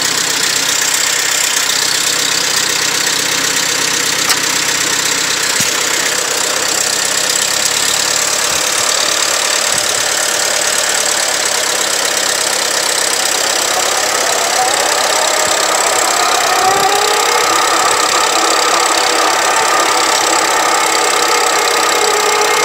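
1948 Farmall A tractor's four-cylinder gasoline engine running steadily just after starting. About two-thirds of the way through, its pitch rises and then holds at the higher engine speed.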